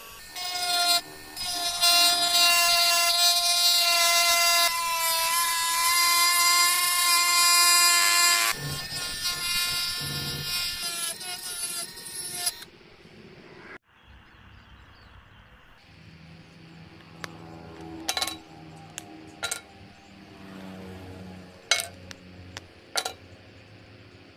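Handheld electric rotary tool running at high speed, a loud whine whose pitch dips as the cutting disc bites into PVC sheet. It gets quieter after about eight seconds and stops about thirteen seconds in. A quieter stretch follows with a low hum and a few sharp clicks.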